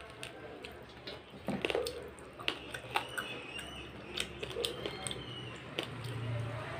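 Close-miked eating sounds: wet chewing with irregular lip smacks and mouth clicks from a mouthful of fried katla fish eaten by hand.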